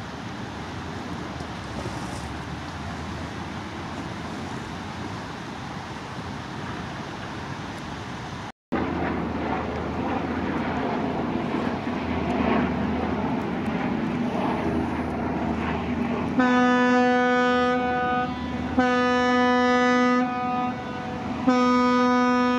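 A steady rushing of wind and water, cut off for a moment about eight seconds in. Then, in the second half, the fireboat's horn sounds three long blasts of about two seconds each, one steady low note.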